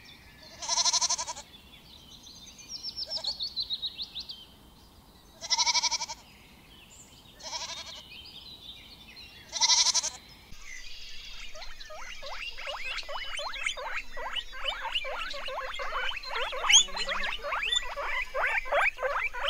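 A goat bleats four short times. From about ten seconds in, a dense run of rapid, short, high squeaks follows, from guinea pigs.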